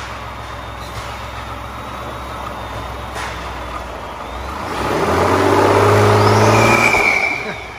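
2018 Ford F-150's 3.5-liter EcoBoost twin-turbo V6 idling on its stock air intake, then revved once. The engine climbs about four and a half seconds in, holds high for about two seconds with a thin high squeal near the top, and drops back to idle near the end.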